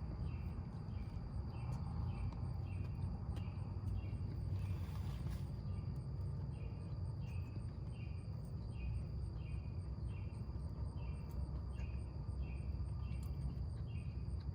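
Insects chirping: a regular chirp about twice a second over a steady high-pitched buzz, with a low rumble underneath and a short hiss about five seconds in.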